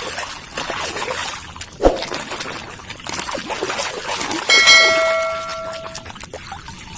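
Water splashing and trickling while muddy toy vehicles are rinsed clean, with a knock about two seconds in. A clear bell-like ring sounds about four and a half seconds in and lasts over a second.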